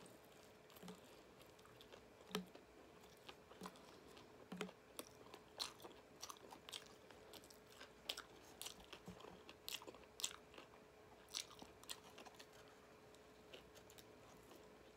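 Close-up chewing of a fried chicken slider, with many quick wet mouth clicks and lip smacks at an irregular pace. A faint steady hum runs underneath.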